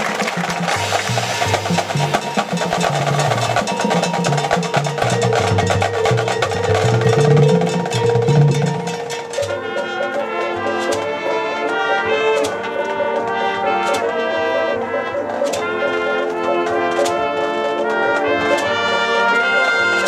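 High school marching band playing brass and percussion. For about the first nine seconds a dense full-band passage with a moving bass line; then it changes to held brass chords punctuated by sharp percussion hits about every second and a half.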